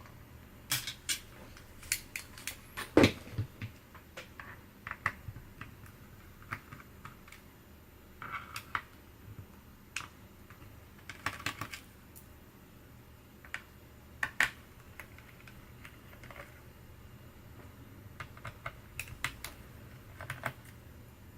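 Irregular small clicks and taps of tools and plastic parts as an HP Envy 15 laptop is taken apart, with a louder knock about three seconds in.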